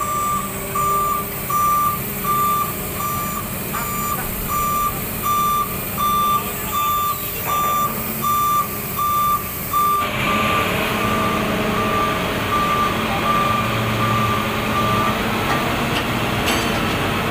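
Heavy-equipment warning beeper sounding a steady train of short, single-pitched beeps, about two to three a second, over a running diesel machine. About ten seconds in, the machine noise grows louder and the beeps become fainter, stopping shortly before the end.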